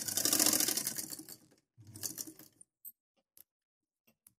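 Tailoring sewing machine stitching fast through towel cloth in a plain straight stitch. It stops about a second and a half in, runs again briefly, then gives way to a few faint ticks.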